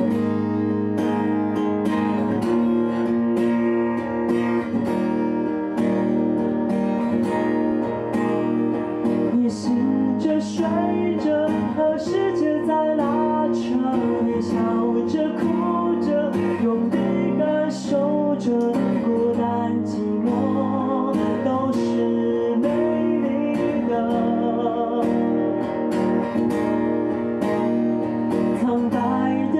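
Acoustic guitar strummed and picked in a solo song, with a man's singing voice joining over it from about ten seconds in.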